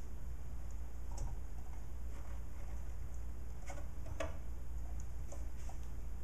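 Light clicks and taps of push-on wire connectors being handled and pressed back onto terminals inside an espresso machine: a few scattered sharp clicks, the clearest about four seconds in, over a steady low hum.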